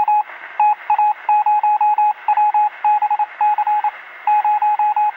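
Morse code: a single steady beep tone keyed in short and long elements, grouped like letters with short gaps between, over a band of radio-style hiss.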